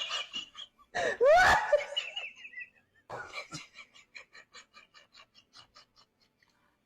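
A person laughing: a loud wavering cry about a second in, then short breathy laughs, about four a second, that fade away.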